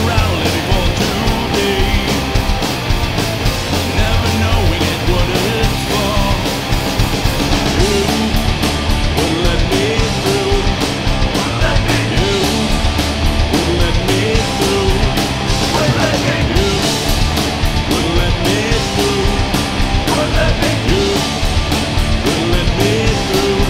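Punk rock band recording: electric guitars, bass guitar and drums playing together at a steady loud level.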